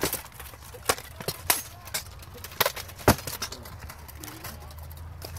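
Swords striking shields and plate armour in an armoured sword-and-shield bout: a quick string of sharp clanks and knocks, the loudest about three seconds in, thinning out towards the end.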